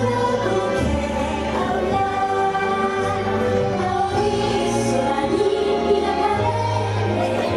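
Parade soundtrack playing over loudspeakers: music with voices singing long, held notes over a steady bass.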